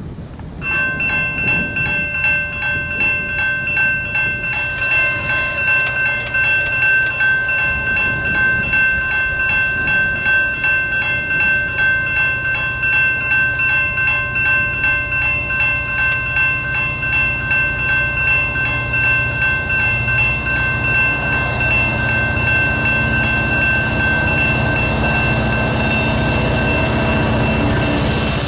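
Railroad crossing warning bell starting about half a second in and ringing in a steady, rapid pulse as the crossing signals a train approaching. In the second half the low rumble of approaching diesel freight locomotives rises under it, and the bell fades out near the end.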